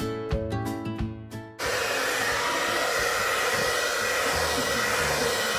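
Light guitar music, then about a second and a half in a hair dryer cuts in abruptly and runs steadily: a loud rush of air with a high whine.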